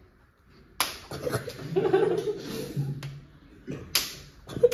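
Two open-hand slaps to the face, about three seconds apart, each a sharp smack.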